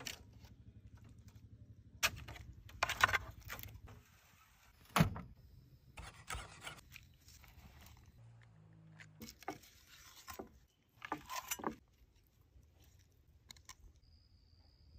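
Cooking handling sounds: scattered sharp metallic clinks and knocks of a spatula and the metal grill basket, the loudest about two, three and five seconds in and a quick cluster near eleven seconds, over a low hum during the first four seconds.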